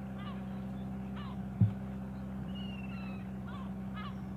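Birds giving about five short calls that fall in pitch, over the steady hum of the boat's engine running, with a single knock about a second and a half in.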